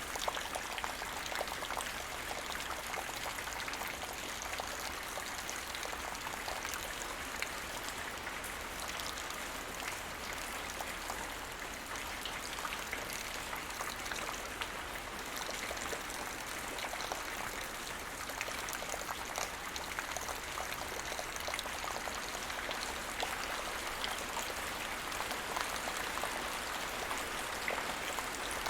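Light rain falling steadily on the ground: an even hiss of rain dotted with many small individual drop ticks.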